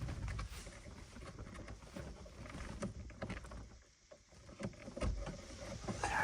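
Hands working the plastic shifter-cable connector clips at the base of a car's gear shifter: scattered light clicks, rustles and knocks, with a louder knock about five seconds in.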